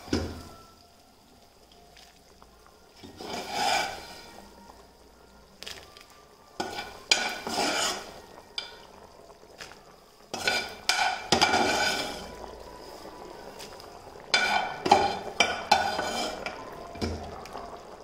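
Metal spoon scraping and clinking against pans as fried besan gatta pieces are transferred into boiling gravy in a steel kadai, in several bursts a few seconds apart, with the gravy bubbling in between.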